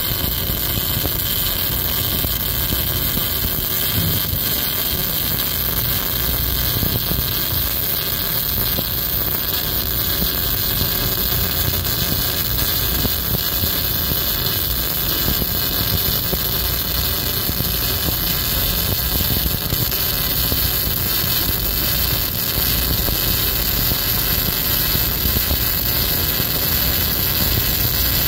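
Electric welding arc burning without a break while a bead is laid along a metal seam, a steady hiss.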